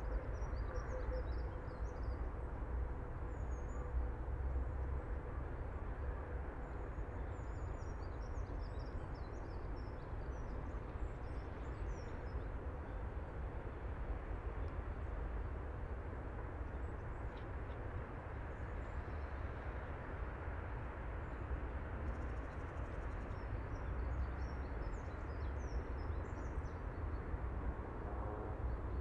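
Steady outdoor background noise with a strong low rumble, and small birds chirping on and off throughout.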